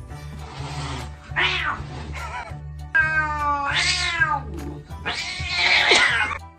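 A cat meowing loudly several times in drawn-out calls. The longest comes about three seconds in and drops in pitch at its end, and a rougher, raspier call follows near the end.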